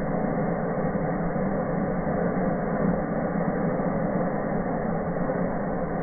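Burning firework fountains giving off a steady rushing noise, with no separate bangs.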